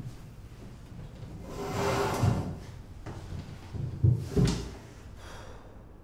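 A metal-legged school chair scraped out along the floor, then two knocks about four seconds in as someone sits down on it at the desk.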